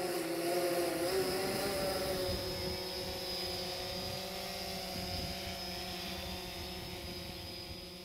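Multirotor drone's motors and propellers whining steadily, with a slight dip in pitch about a second in, then fading near the end.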